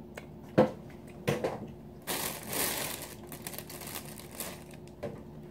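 Handling noise close to the microphone: a few sharp knocks of tableware in the first second and a half, then about two seconds of rustling and crinkling.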